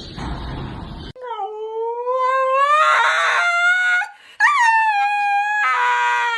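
A dog howling: two long howls, the first rising slowly in pitch, the second starting with a quick rise and fall and then held level.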